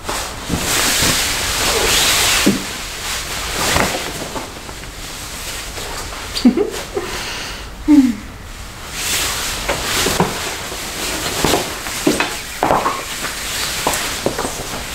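Nylon salon cape rustling and swishing as it is fastened at the neck, shifted about and swung as she stands, with scattered small clicks. Two brief sharp sounds stand out about six and a half and eight seconds in.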